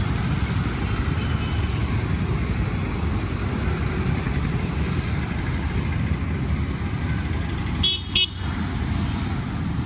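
Road traffic of motorcycles, auto-rickshaws and cars passing as a steady rumble. A vehicle horn toots twice in quick succession about eight seconds in.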